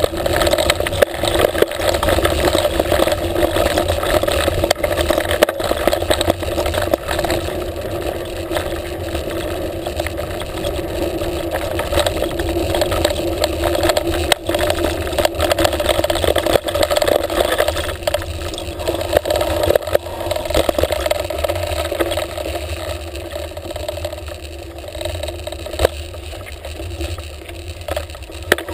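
Mountain bike riding over a dirt woodland trail, heard through a handlebar-mounted GoPro: a continuous rumble of tyres and wind with frequent knocks and rattles as the bike goes over bumps, easing off a little near the end.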